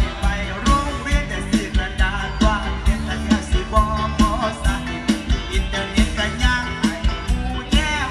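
Live Thai mor lam band music: a singer's voice bending over a full band with a steady, regular drum beat.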